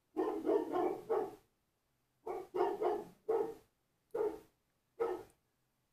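A dog barking repeatedly: a quick run of barks, then single barks about a second apart.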